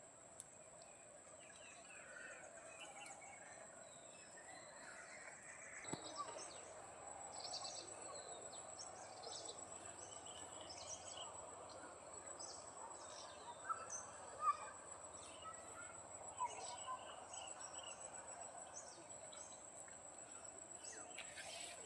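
Faint forest ambience: a steady high insect drone, with short bird chirps scattered throughout over a soft background hiss.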